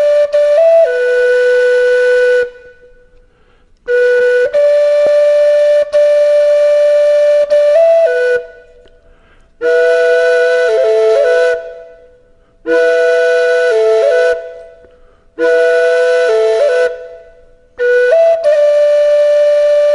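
Solo flute playing a slow melody: long held notes with small ornamental turns, in phrases of two to four seconds separated by short pauses where the sound dies away.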